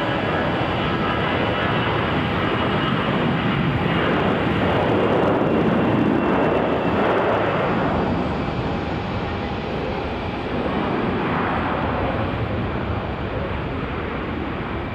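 Airbus A321's twin jet engines at take-off thrust during its take-off roll: steady jet noise that grows to its loudest about six seconds in, then slowly fades.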